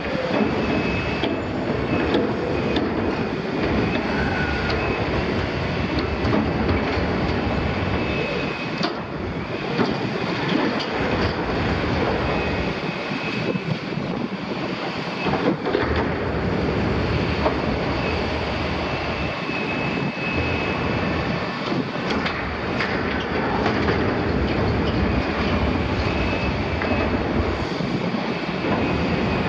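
Liebherr 974 demolition excavator tearing at a double-walled steel oil tank: a dense racket of sheet steel grinding, crumpling and clanking under the long-reach attachment, with frequent sharp metal knocks and a thin high squeal that comes and goes, over the machine's steady engine.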